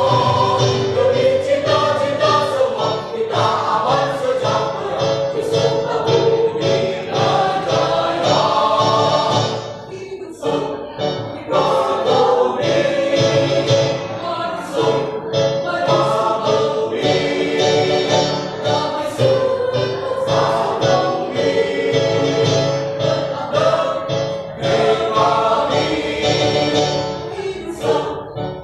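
Mixed choir of women's and men's voices singing a march in parts, with short pauses for breath between phrases, the clearest about ten seconds in.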